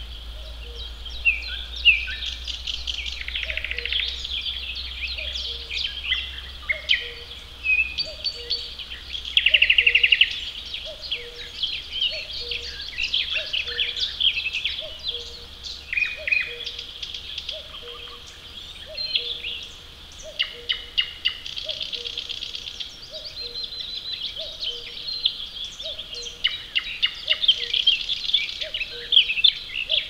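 A chorus of songbirds singing with many overlapping chirps and trills. Underneath, a common cuckoo calls its falling two-note 'cuck-oo' over and over, about once every second and a half.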